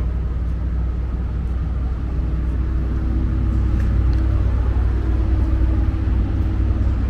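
Steady low rumble with a faint steady hum over it and a few faint ticks.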